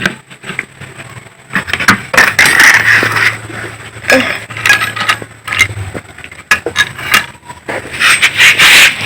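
Metal tools and parts clinking and scraping against each other in irregular clatters, as when an engine is being taken apart by hand.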